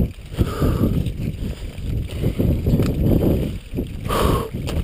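Mountain bike rolling fast down a loose, rocky gravel track: tyres crunching over stones and the bike rattling, with wind buffeting the microphone. A couple of sharp knocks come near the end as the wheels hit rocks.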